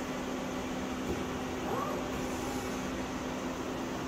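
Steady machine hum with one constant low tone under an even rushing noise, with no strikes or cutting.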